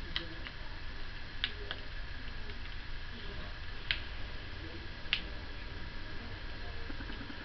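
Model train rolling slowly along the layout track: about five sharp, irregular clicks of the wheels over the rail joints, over a steady low hum.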